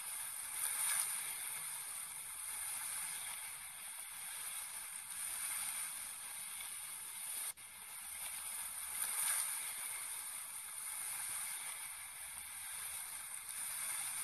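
Steady hissing sound effect from an augmented-reality app, played with its animated double-headed snake. It breaks off for an instant about halfway through.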